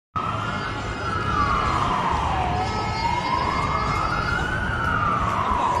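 Emergency vehicle siren wailing in a slow rise and fall, about one full sweep every four seconds, over low street traffic noise.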